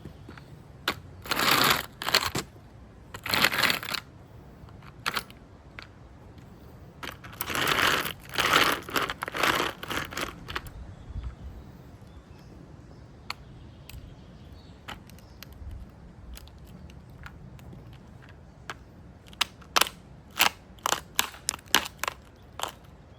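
Toy car crushed under a rubber boot: crunching and cracking in several bursts, then a quick run of sharp snaps near the end as it breaks apart.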